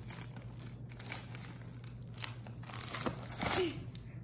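Clear plastic packaging bag crinkling and rustling as it is pulled out of a cardboard toy box, in irregular crackles with the loudest rustle about three and a half seconds in.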